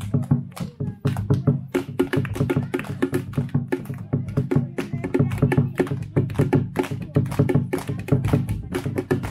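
Live percussion: rhythmic hand clapping with hand drums, several sharp strokes a second in a steady beat.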